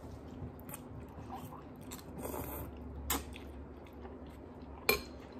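Two people eating noodles close to the microphone: slurping and chewing, with a few short sharp clicks, the loudest near the end.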